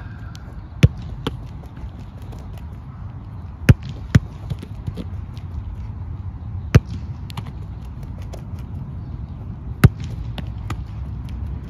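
Football being thrown and volleyed back and forth in a warm-up drill: a sharp smack of the ball about every three seconds, twice followed half a second later by a second, softer smack, over a steady low rumble.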